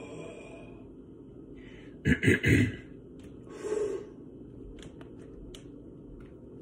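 A man breathing hard from the effort of push-ups. About two seconds in comes a loud, choppy, forceful exhale, and a softer blown-out breath follows about a second later. A few faint clicks come after.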